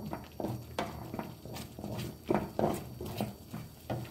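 Wooden spoon stirring a thick cornmeal-and-cheese mixture in a copper pan, with irregular knocks and scrapes of the spoon against the pan. The loudest knocks come a little past halfway.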